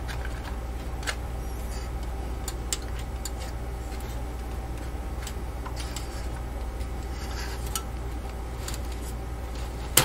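Scattered light clicks and taps of hands handling a SATA cable and drive-mount parts inside a computer's metal case, over a steady low hum. The sharpest click comes near the end.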